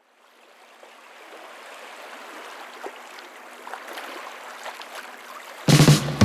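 Soft ambience of gently moving sea water fading in slowly, with small clicks and splashes. About five and a half seconds in, a loud burst of music with low bass notes cuts in.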